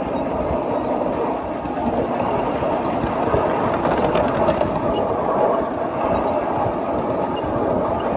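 A 5-inch gauge Maxitrak GWR 94xx pannier tank live steam locomotive running along the track, a steady noise of wheels on rail and working steam with no clear beat.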